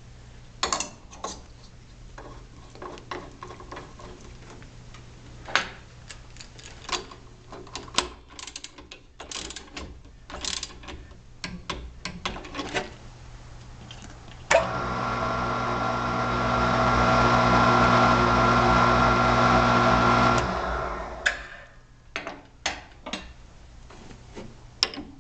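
Scattered metal clicks and clanks of handling at a Grizzly G0705 mill/drill. About midway the mill's spindle motor starts abruptly, runs steadily for about six seconds, then winds down.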